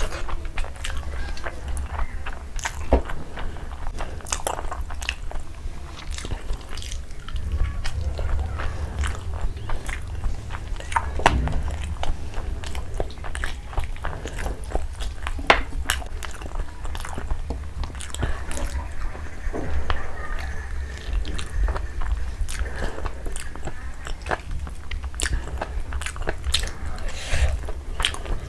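Close-miked eating: chewing and wet mouth smacks as handfuls of curry-soaked rice and chicken are eaten by hand. Many short sharp clicks run through it over a low rumble.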